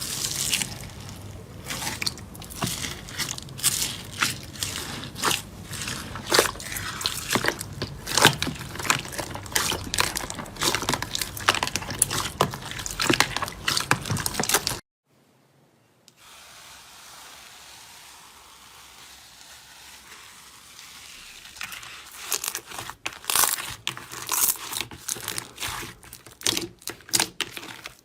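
Slime being squeezed and poked by hand, making dense wet clicks and pops. It breaks off briefly about halfway through, comes back as a soft hiss, and builds again into rapid clicking.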